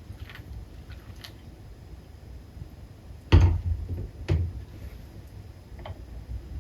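Two thumps about a second apart, the first the louder, over faint room noise with a few light clicks.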